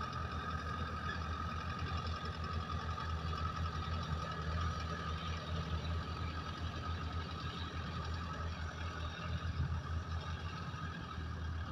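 Belarus tractor's diesel engine running steadily under load, pulling a land-leveling blade across a field; a low, even drone.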